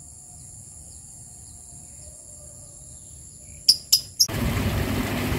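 Insects trilling in a steady high pitch, with three short, loud bird chirps at about four seconds. A loud steady rushing noise with a low hum then cuts in abruptly.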